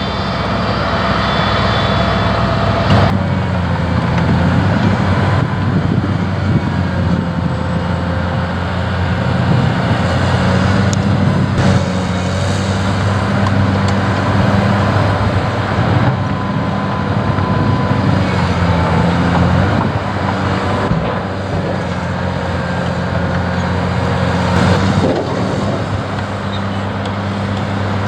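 Diesel engine of a heavy Caterpillar construction machine running steadily under work, a deep even drone. The sound changes abruptly about three seconds in and a few times after.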